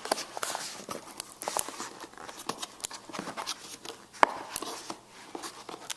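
Cardboard keyboard box being worked open by hand: irregular scraping, rubbing and light clicks of cardboard, with one sharper knock about four seconds in.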